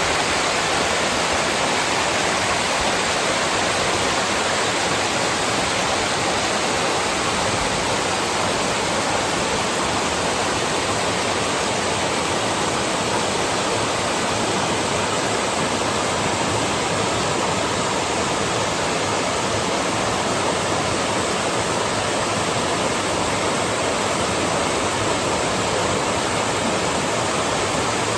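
Mountain valley stream rushing over rocks: a steady, unbroken rush of water.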